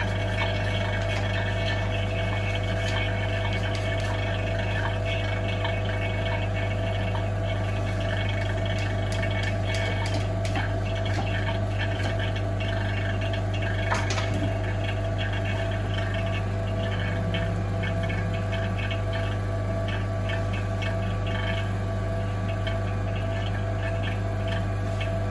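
OCA vacuum laminating machine running its vacuum stage, its vacuum pump drawing down the laminating chamber: a steady hum with a few even tones over it. One short tick comes about halfway through.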